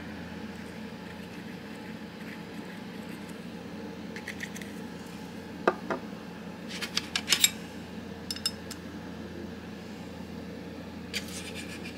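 Light metallic clicks and taps from handling the small parts of a Spyderco Paramilitary 2 folding knife (liner, pivot and stop pin) during reassembly, in a few scattered bunches with a quick cluster past the middle, over a steady low hum.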